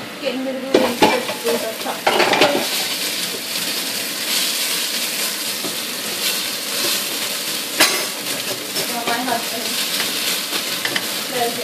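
An onion, ginger and garlic curry base sizzling in oil in an uncovered pot, cooking down so that its moisture boils off. A few sharp knocks in the first two or three seconds and one near the middle break the steady sizzle.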